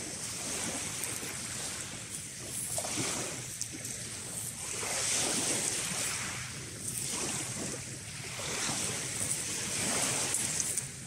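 Small waves washing onto a shingle beach, swelling and falling away every few seconds.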